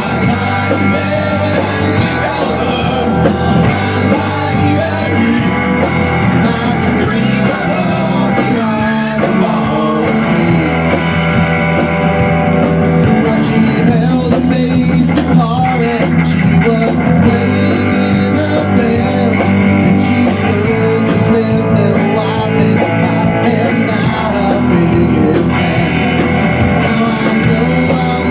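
Rock band playing: electric guitar, electric bass and drum kit.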